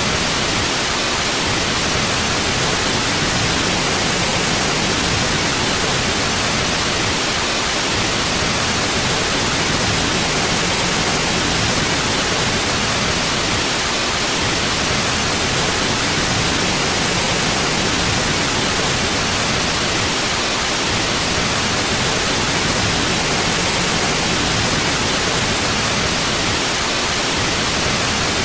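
Steady white noise: an even, unchanging hiss across the whole range, played as a sleep and relaxation sound.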